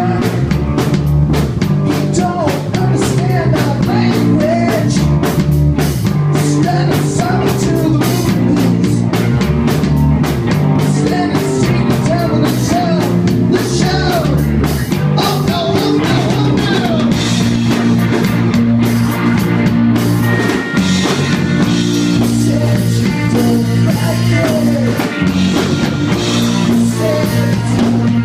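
Live rock band playing: electric guitar, bass guitar and drum kit keeping a steady beat, with a man singing lead.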